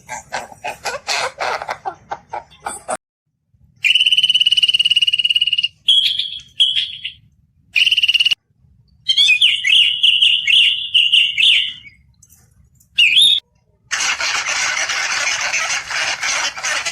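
A run of separate animal-call clips: rapid chattering calls, then high whistled and trilled bird calls with chirps, and near the end about three seconds of a steady hiss.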